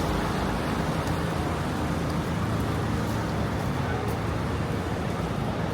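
Steady city street ambience: traffic noise, with indistinct voices in the background.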